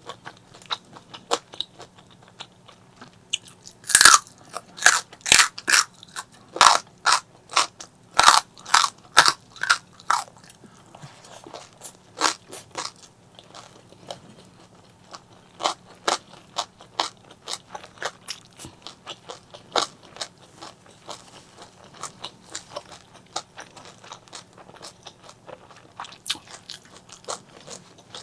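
A person biting and chewing crunchy food close to the microphone: many short, sharp crunches. They come thick and loud from about four to ten seconds in, then slow to scattered, quieter chews.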